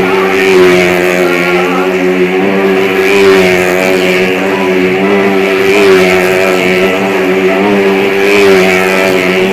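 Motorcycle engine running at a steady, held pitch as it circles the vertical wooden wall of a well-of-death drum, swelling louder about every two and a half seconds as the bike passes on each lap.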